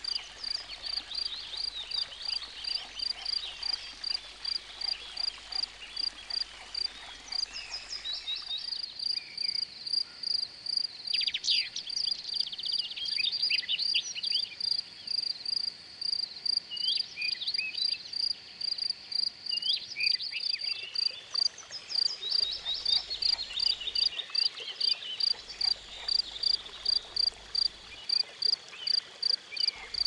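Chorus of frogs and insects: a high, pulsing call repeats about twice a second, with scattered chirps and croaking calls layered over it, busiest in the middle.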